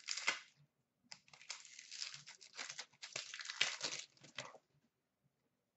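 Foil trading-card pack wrapper being torn open and crinkled. A short rustle comes at the start, then a longer run of crackling from about a second in that stops a little over a second before the end.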